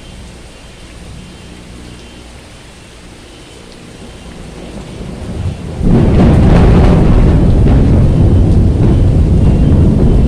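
Heavy tropical rain with thunder: the noise swells and then breaks loud about six seconds in, a deep rumble that carries on.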